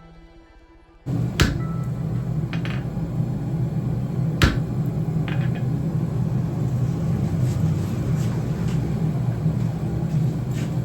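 A forge running with a steady low hum, cutting in suddenly about a second in, with a few sharp metal clinks, the clearest near the start and about four and a half seconds in.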